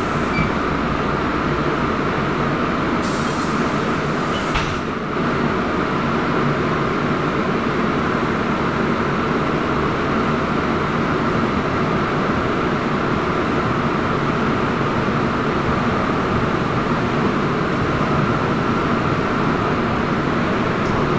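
Steady running noise heard inside a moving Trolza-5265.00 Megapolis trolleybus, an even rumble with no breaks.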